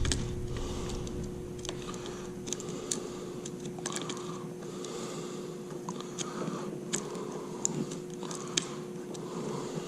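Irregular small clicks, taps and scrapes of a motorcycle handguard and its mounting hardware being handled and worked into place, over a steady low hum.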